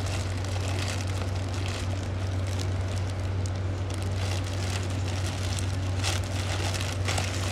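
Black plastic bag rustling and crinkling as hands pick at its knotted top and pull it open, with sharper crackles near the end. A steady low hum runs underneath.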